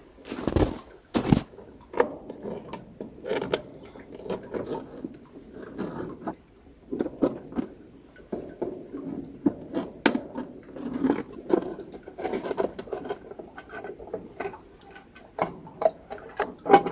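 Hands working at a tank level sensor unit, trying to get a part out: irregular clicks, taps and scraping. Two louder knocks come in the first second or so.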